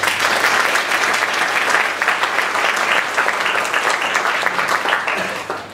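Audience applauding, starting all at once and dying away near the end.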